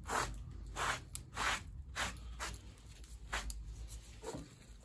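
A series of short brushing strokes, about seven of them, spaced roughly half a second to a second apart: wood shavings being swept off a worktable by hand.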